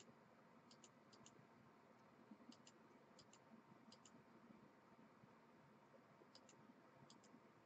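Near silence: room tone with faint light clicks, mostly in quick pairs, coming on and off at irregular gaps.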